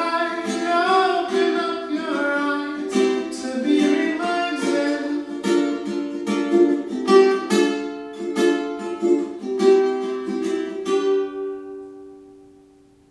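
Ukulele strummed in the echo of a bare, empty room, with a man singing along over the first few seconds. About eleven seconds in the strumming stops, and a last chord rings on and fades away.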